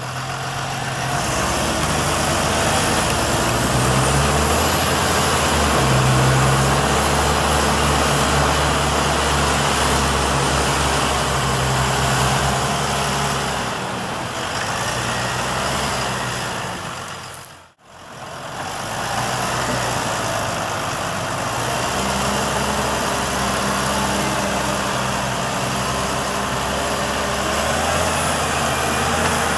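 Deutz-Fahr Agrotron tractors' diesel engines running hard under load as they tow a tractor and slurry tanker stuck in soft ground. The engine note steps up a few seconds in and holds, and the sound drops out briefly about two-thirds of the way through.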